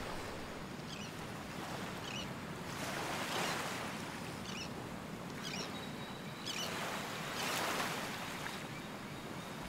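Outdoor forest ambience: a steady rushing noise that swells about three seconds in and again near eight seconds, with faint short high chirps scattered through it.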